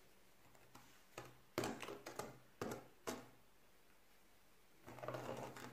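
Plastic Schleich toy horse figures being moved by hand across a sand-covered play board: a few faint, irregular taps in the first half and a short scraping rustle near the end.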